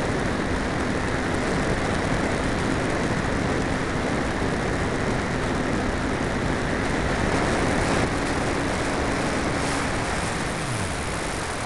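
Steady wind rush over the onboard microphone of an RC model glider in flight, with the glider's motor and propeller as a faint steady hum. Near the end the motor's pitch falls away as it winds down.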